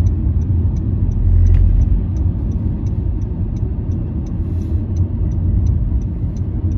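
Car road noise heard from inside the cabin while driving: a steady low rumble of tyres and engine, with a faint, regular ticking about three times a second.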